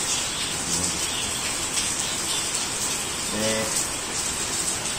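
Steady rain falling, an even hiss, with a short voice sound about three and a half seconds in.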